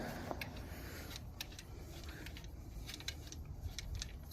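Scattered light metallic clicks and taps of hand tools being handled, over a steady low rumble.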